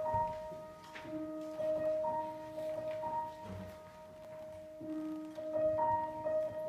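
Piano playing the slow opening of a song, a few held notes ringing on together and changing about once a second.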